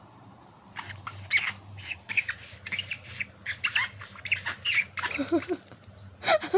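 A bird giving a rapid series of short, high calls, several a second, with a few lower calls about five seconds in and a loud call near the end.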